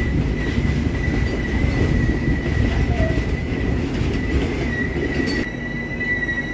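Express train running on the rails, a steady high-pitched wheel squeal held over the rumble of the wheels and track.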